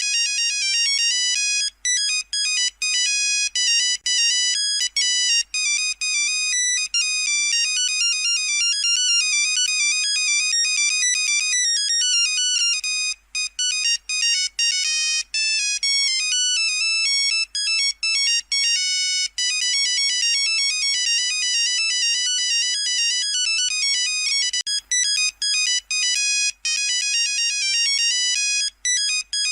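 Nokia 3310 ringtone playing: a fast run of short, buzzy single-pitch beeps forming a melody, broken now and then by brief gaps.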